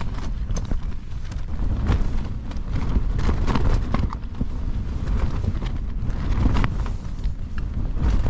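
Strong wind buffeting a lightweight nylon tent, its fabric flapping and snapping in quick irregular cracks over a steady rumble of wind on the microphone.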